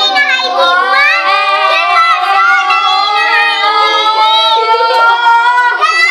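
Several children's voices holding long, sing-song notes together, overlapping and sliding slowly in pitch, with a fresh rise near the end.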